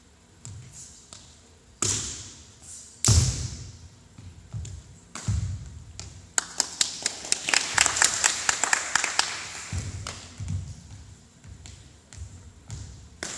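Wushu long fist routine on a hardwood gym floor: separate stomps and landings, the loudest about three seconds in, then a quick run of sharp slaps from about six to nine seconds in, all echoing in the gym.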